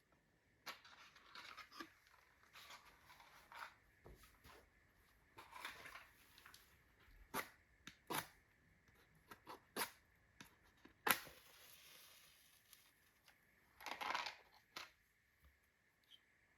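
A fireplace fire of unsplit birch logs being lit: faint, irregular rustling with scattered sharp clicks and cracks, the loudest a sharp crack a little past halfway.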